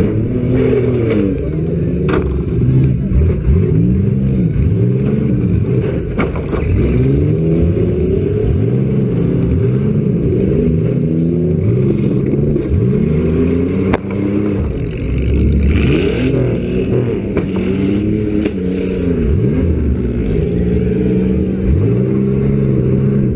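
Engines of several demolition derby cars revving up and falling back again and again, overlapping one another, with a few sharp knocks from impacts.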